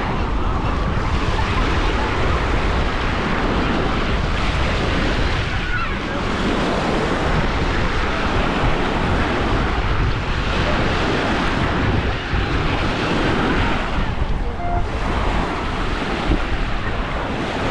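Sea waves washing onto a sandy beach, with wind noise on the microphone.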